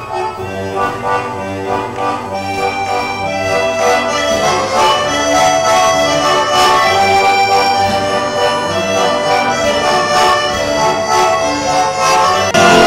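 A small accordion playing a tune, with sustained reedy notes and chords, swelling louder over the first few seconds.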